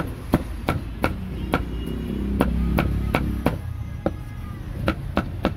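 Cleaver chopping grilled pork on a chopping block: a steady run of sharp chops, about three a second, with a short pause a little after the midpoint. A low engine hum swells and fades in the middle.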